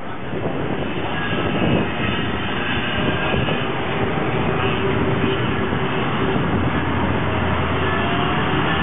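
Yamaha KT100S two-stroke kart engine running hard on track, a rough noisy engine note, its pitch rising near the end as it accelerates.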